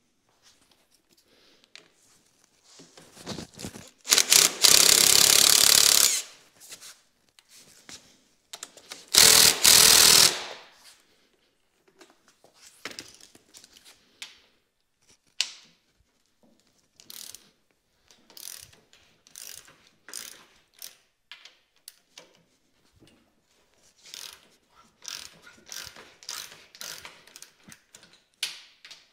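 Hand ratchet wrench clicking in short runs as the bolts holding the plow's steel side plate and rubber sideboard are backed out. Early on there are two loud, harsh noises a second or two long.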